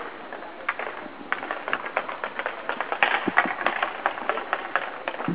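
Roller hockey play on a wooden rink floor: sticks and puck clack and knock at an irregular pace, over the hum of skate wheels rolling. The knocks come thickest about three seconds in.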